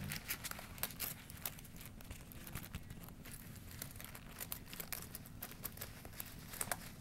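Handling noise: scattered soft rustles and light clicks from hands moving the lock-pick case close to the microphone.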